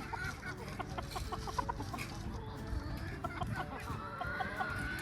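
Chickens clucking, a run of short clucks throughout, with a longer drawn-out note near the end.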